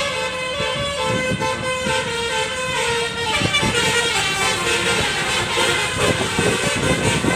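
Indonesian 'telolet' bus horn playing a melody of held notes that change pitch every second or two, over the bus's road noise.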